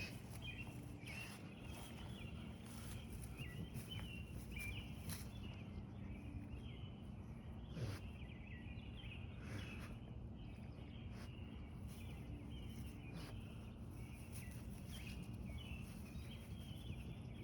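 Small songbirds chirping and twittering in quick, short warbled phrases, faint, over a steady low background hum.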